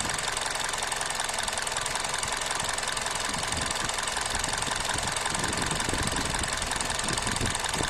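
Toyota 3ZZ-FE 1.6-litre four-cylinder petrol engine idling steadily with a fast ticking clatter. It is idling rough and shaking, which the owner suspects is a misfire, although an OBD scan shows no misfire.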